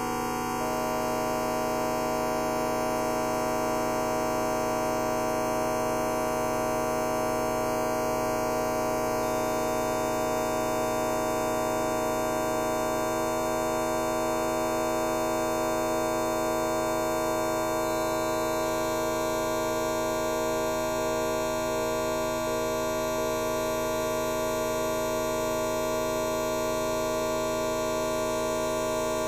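A fart sound effect time-stretched to an hour long, smeared into a steady drone of many held tones at once.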